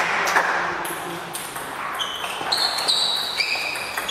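A table tennis rally: the celluloid ball clicks off bats and table while sports shoes give high, held squeaks on the hall floor from about halfway through. The applause for the previous point dies away at the start.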